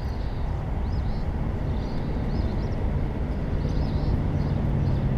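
Steady rumble of highway traffic, with a low engine hum swelling in the second half as a heavy vehicle passes. Faint high chirps recur throughout.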